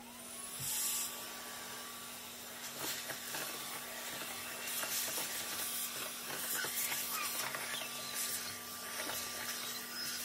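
Dyson DC21 canister vacuum switching on with a rising whine, then running steadily with a hum and rushing suction hiss. Shredded paper is sucked up through the wand and hose with scattered ticks and clicks.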